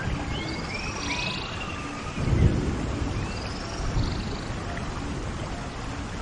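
Nature ambience: birds chirping and whistling over a steady wash of noise, with a low rumble swelling about two and a half seconds in and a smaller one about four seconds in.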